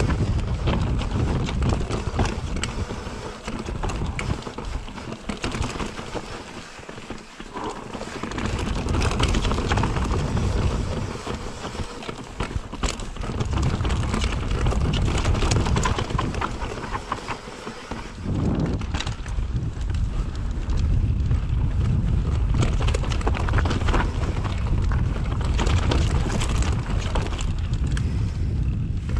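Mountain bike riding over a rough stone-paved trail: the tyres and frame rattle and clatter over the stones, with wind buffeting the camera microphone in a low rumble that rises and falls with speed.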